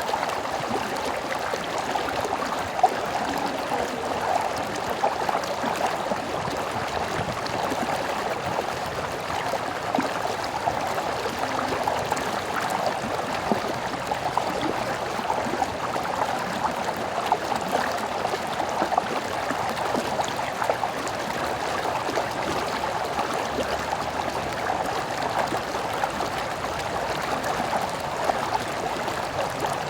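Small stream flowing, a steady rush of water with many small splashes and trickles.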